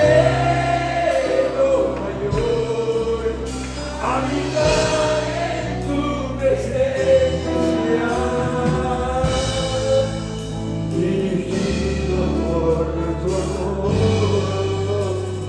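Live gospel worship music: a church band with keyboard and electric guitars accompanying singing, with held bass notes under a slow, wavering sung melody.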